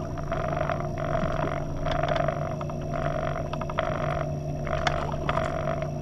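A small boat motor humming steadily with a higher whine, under uneven rushing noise and a few light clicks.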